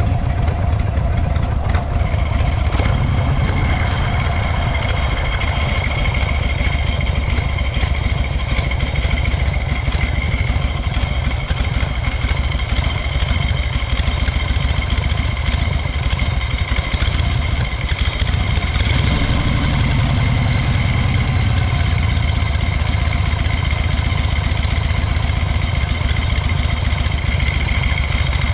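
Harley-Davidson Shovelhead air-cooled V-twin motorcycle engine running steadily, its low exhaust note growing fuller about two-thirds of the way through.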